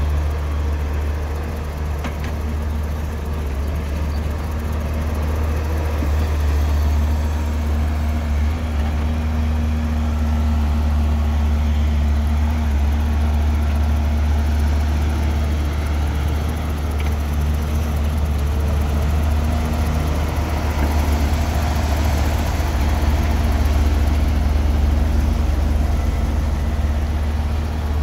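Diesel engine of a Hyundai 1400W-7 wheeled excavator running steadily under working load as it digs and loads soil, a deep, even drone.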